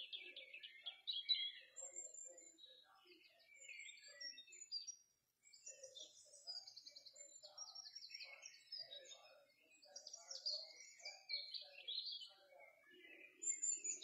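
Several forest birds singing, a faint mix of short chirps and rapid high trills, with a brief gap about five seconds in.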